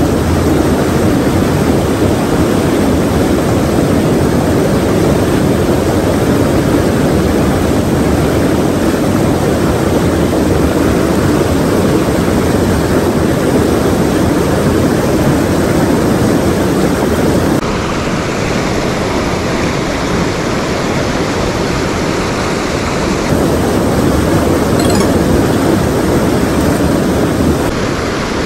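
A mountain stream rushing over rocks and a small cascade: a loud, steady rush of whitewater. It gets a little quieter for several seconds about two-thirds of the way through, then rises again.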